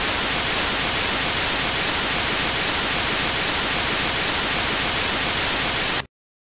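Television static: a loud, steady hiss of white noise that cuts off suddenly about six seconds in.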